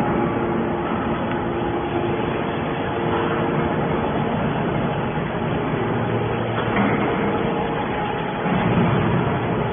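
Hydraulic steel scrap baler running: steady machine noise with a hum of several steady tones, some of which drop away about four seconds in.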